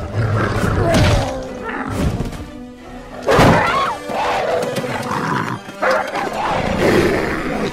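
Film action soundtrack: dramatic score under growling dogs and sudden heavy hits, with a woman screaming a little past the middle.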